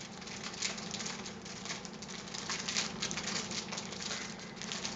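Anti-static plastic bag crinkling and rustling in quick irregular crackles as a motherboard is handled in it and slid out.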